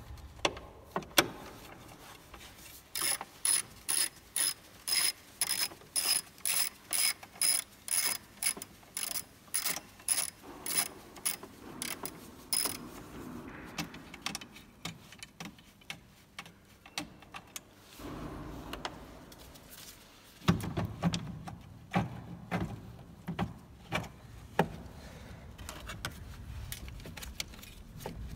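Socket ratchet wrench clicking in short, even strokes, about two a second, starting about three seconds in and lasting some ten seconds. After that come scattered clicks and knocks of tools and metal parts being handled.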